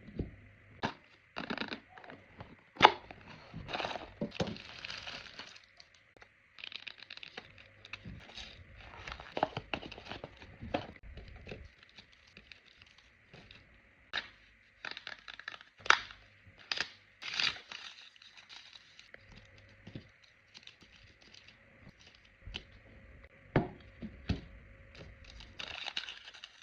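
Food packaging being handled and unwrapped: wrappers crinkling and tearing, with sharp cracks and snaps scattered throughout, the loudest about three seconds in.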